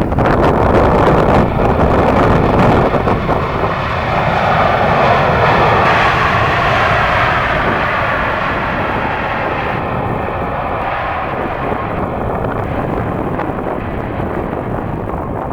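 Jet engines of a landing FedEx Boeing 767 freighter: a loud roar with whining tones sliding in pitch during the first half, then slowly fading as the aircraft moves away.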